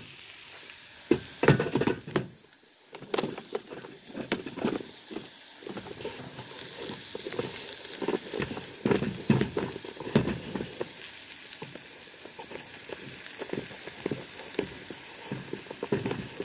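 Steak frying in a pan: a steady sizzle with scattered pops and knocks, the loudest about a second in.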